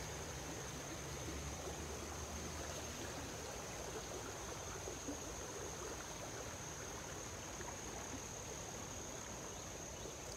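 Small man-made creek running over rocks, a steady rush of water. A constant high insect drone runs with it.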